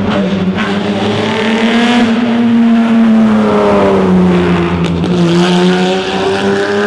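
1960 Ferrari 250 GT SWB's V12 engine running loud as the car drives past. Its note sags slowly in pitch, then climbs again about five seconds in, with a single sharp crack at that point.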